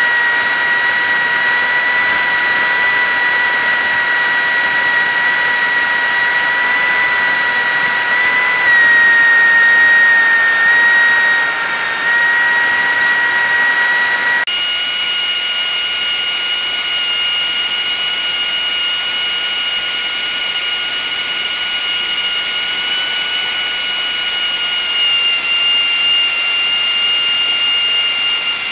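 Cessna 152's four-cylinder Lycoming O-235 engine and propeller running steadily, heard inside the cabin in flight and played back sped up, so it comes across as a high steady whine. About halfway through, the pitch jumps suddenly higher and holds there.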